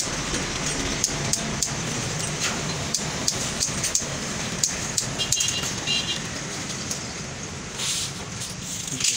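Vinyl sticker sheets and their backing paper crackling and rustling under the hands: scattered sharp clicks as decals are pressed down and peeled, with a louder paper rustle near the end. A steady hum of street traffic runs underneath.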